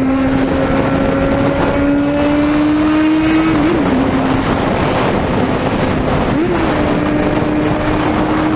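Suzuki Bandit 650N inline-four engine running under way, a steady note that climbs slowly in pitch, with a brief wobble twice, over a constant rush of road and wind noise.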